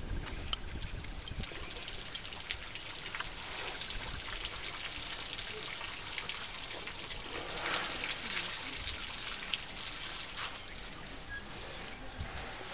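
Birds chirping in the bush over faint trickling and splashing water from an elephant's trunk in a shallow waterhole.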